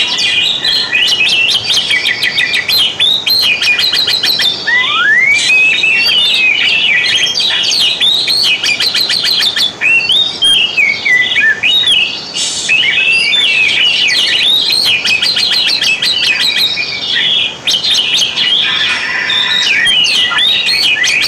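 Oriental magpie-robin (kacer) singing continuously: a varied song of whistled glides and rapid trills, with a long rising whistle about five seconds in.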